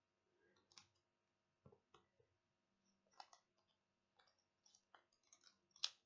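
Faint, irregular clicks and light rustling of a pom-pom maker being opened and pulled off a freshly tied wool pom-pom, with a sharper click near the end.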